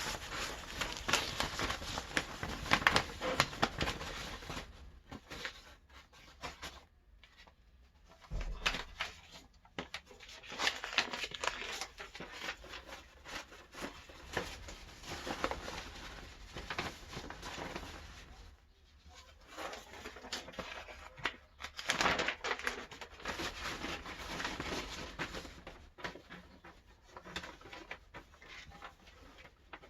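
Rustling, scraping and crinkling of worm bedding and damp cardboard being handled and tipped into a worm bin, in irregular bursts with short pauses.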